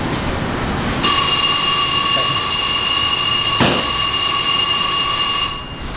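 A shrill, steady tone made of several high pitches at once. It starts abruptly about a second in and cuts off just before the end, with one sharp click partway through.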